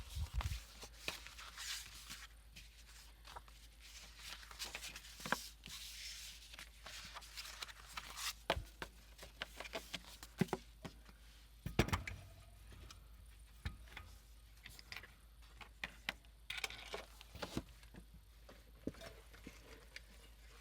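Hands handling paper and packing materials on a desk: irregular rustling with scattered light taps and clicks, and a sharper knock about midway.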